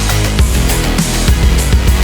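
Background rock music with heavy distorted guitars and a steady drum beat.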